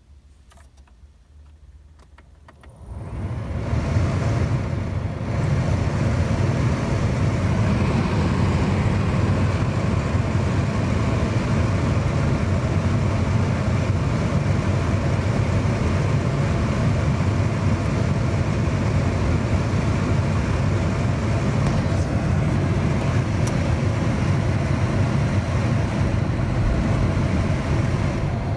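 Inside a Holden VY Commodore, a steady loud rushing noise starts about three seconds in and holds, after a quiet opening with a few faint clicks.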